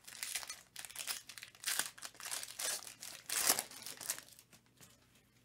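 Foil wrapper of a Chronicles UFC trading card pack crinkling and tearing as it is opened, in a run of crackly rustles that die away about four seconds in.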